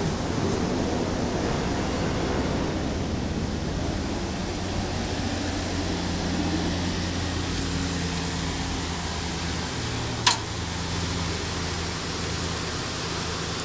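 A 3.0-litre V6 engine idling steadily, heard from outside the truck with outdoor hiss. There is one sharp click about ten seconds in.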